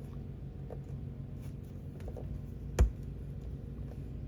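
Faint ticks and scrapes of a small flathead screwdriver prying at a thin laminate strip glued over the screws of a subwoofer enclosure, over a steady low hum. One sharp knock comes nearly three seconds in.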